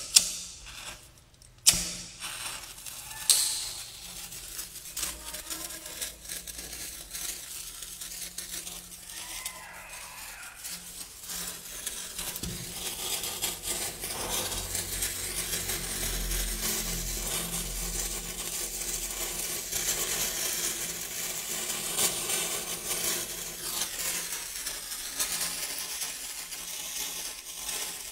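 A few sharp clicks of a lighter in the first few seconds, then a hand-held fuse burning with a steady fizzing crackle as it throws sparks, growing louder about halfway through.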